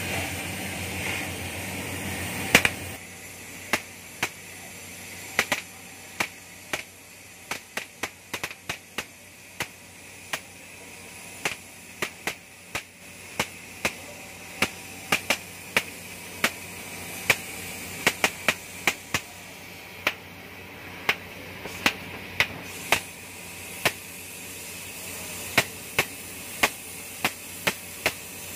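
Oxy-fuel gas cutting torch hissing steadily as it cuts through steel plate, with irregular sharp pops and crackles throughout. The hiss is louder for the first couple of seconds, then settles lower.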